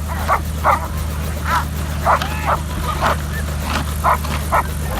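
A working protection dog barking over and over, about two barks a second, over the steady low drone of a running helicopter.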